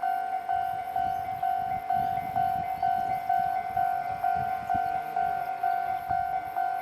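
Japanese railway level-crossing alarm ringing its repeated electronic bell tone, about two strikes a second, the signal that a train is coming and the crossing is closed. A train's low rumble swells and fades in the middle.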